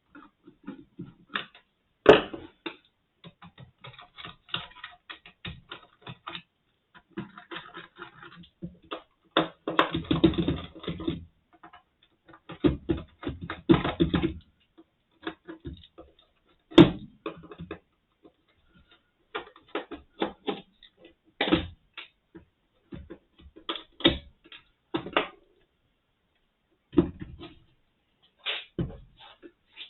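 Irregular clicks, taps and small clatters of hand tools and screws on the plastic housing of a sound level meter being taken apart, with two denser spells of clatter about a third and halfway through.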